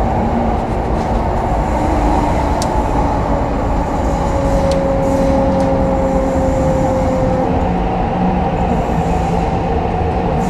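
Hong Kong MTR East Rail Line R-train heard from inside the car while running through an underground tunnel: a continuous loud rumble of wheels on rail, with steady traction motor tones humming through it and a few faint clicks.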